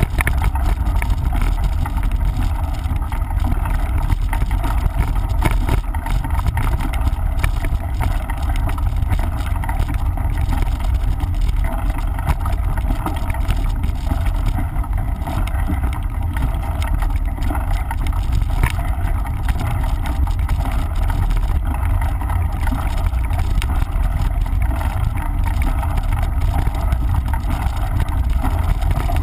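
Wind rumbling on the microphone of a mountain bike riding a dirt trail, with tyre noise and frequent small rattles and clicks from the bike.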